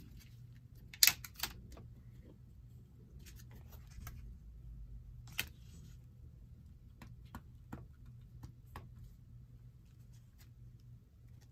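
Clicks and taps of a clear stamp and an acrylic stamp block being handled and set down on a cutting mat: one sharp click about a second in, another near the middle, and a few lighter ticks later, over a low steady hum.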